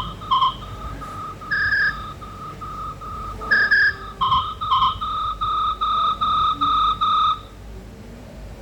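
Mobile phone's loudspeaker playing a ringtone melody of short electronic beeping notes, mostly one repeated note at about two and a half notes a second with a few higher and lower notes mixed in. The tune stops about seven seconds in.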